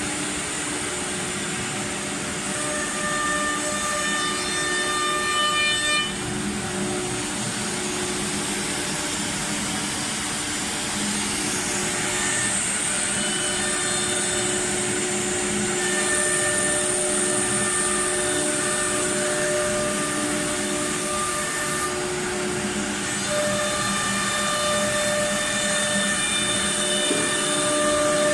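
Four-head CNC router at work, its air-cooled spindles whining at several steady pitches over a continuous rushing noise. The whining tones change every few seconds as the heads move over the panel, with a brief dip about six seconds in.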